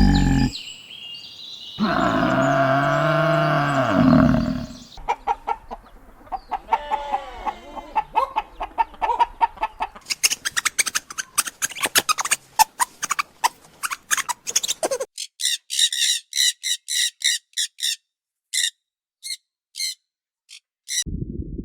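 A series of animal calls, mostly birds. The first is one long pitched call lasting about three seconds. Then come many quick clucks and chirps, thinning out in the second half to a scattered string of high chirps.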